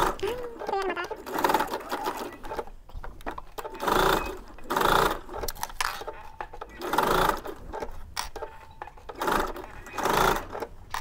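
Electric domestic sewing machine stitching a straight seam through layered canvas fabric and a zipper tape. It runs in several short spurts with brief pauses between them as the fabric is guided.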